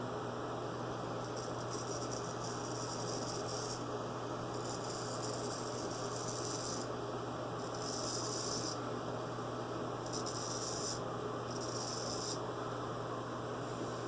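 Naked Armor straight razor scraping through lathered stubble in a series of rasping strokes, each a second or two long with short pauses between.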